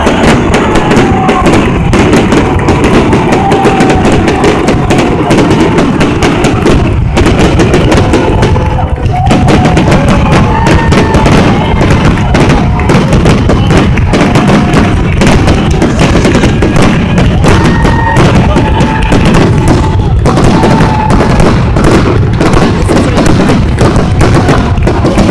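Fireworks display going off in a dense, unbroken barrage of booms and crackles, with music playing over it.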